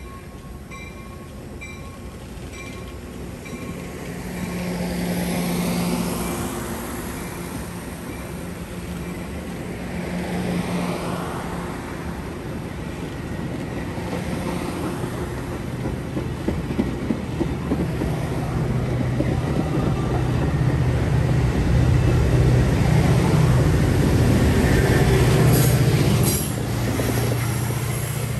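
Metra bilevel commuter train rolling past, the wheels clicking over the rail joints. The diesel locomotive pushing at the rear grows louder as it comes by near the end, running hard under power with its exhaust smoking as the train pulls away.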